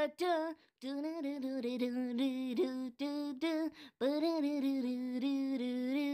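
A single voice humming or singing a wordless tune in a string of short held notes, with brief pauses between phrases.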